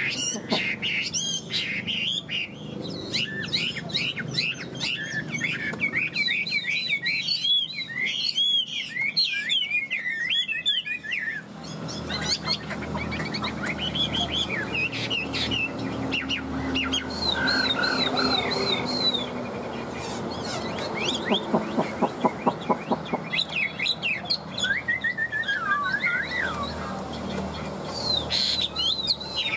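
Chinese hwamei singing: fast runs of clear whistled notes sliding up and down, dense at first and then broken by short pauses.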